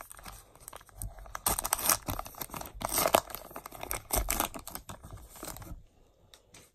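A printed wrapper of a Topps Heritage baseball card blaster pack being torn open by hand, crinkling and tearing with many sharp crackles, stopping about six seconds in.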